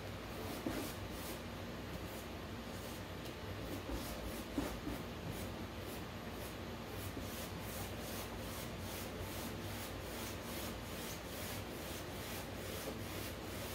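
A paintbrush swept back and forth over a canvas board, blending wet acrylic paint, with soft rhythmic strokes a few times a second. There are a couple of light knocks, about a second in and near five seconds.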